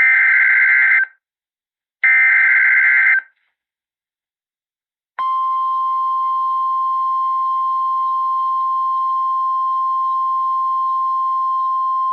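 The last two of the three EAS SAME header bursts: warbling digital data, each about a second long and a second apart. About two seconds of silence follow, then about five seconds in the NOAA Weather Radio 1050 Hz warning alarm tone starts, a steady, loud, single-pitched tone that holds. Together they mark the start of an emergency alert, here a tornado warning.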